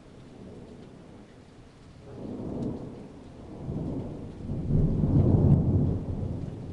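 Thunder rumbling: it builds about two seconds in, swells twice, loudest near the end, then dies away.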